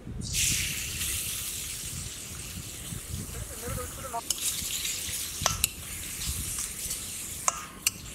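Food dropped into hot oil in a pan starts sizzling loudly about a third of a second in, then keeps frying steadily. A utensil ticks and scrapes against the pan now and then as the food is stirred.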